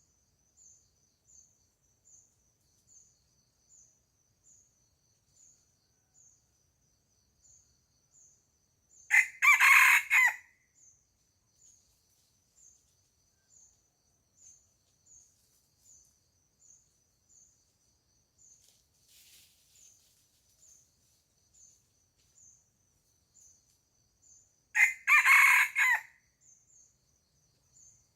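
A rooster crowing twice, each crow lasting about a second and a half, the first about nine seconds in and the second near the end. Under it a faint, high insect-like chirp repeats steadily, nearly twice a second.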